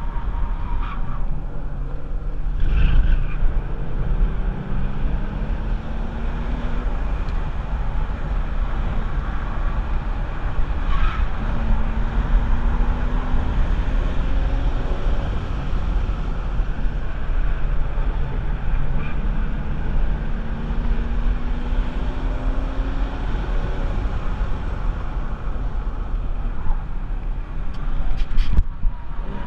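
Porsche 996 Carrera 4's 3.6-litre M96 flat-six engine running hard on a racetrack, its pitch climbing slowly in several long pulls, each ending in a drop. A heavy low rumble of wind and road noise runs under the engine throughout.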